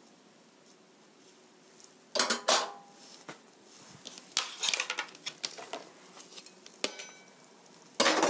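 Kitchen utensils and dishes clinking and clattering in short bursts: a couple of clinks about two seconds in, then a busier run of clatter a couple of seconds later.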